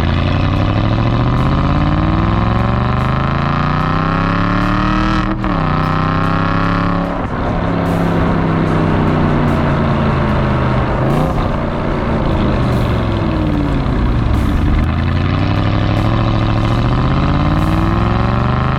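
Aston Martin V8 Vantage's V8 engine accelerating hard, its pitch climbing then dropping sharply at gear changes about five and seven seconds in, then rising and easing off several more times.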